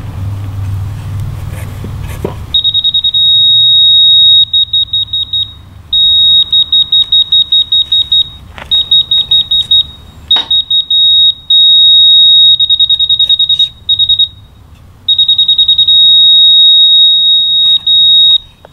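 A laser level receiver on a grade stick beeping loudly at one high pitch, starting a few seconds in. It alternates between rapid beeping and a held solid tone as the stick is moved: fast beeps while off grade, a steady tone when the receiver sits on the rotating laser's level beam.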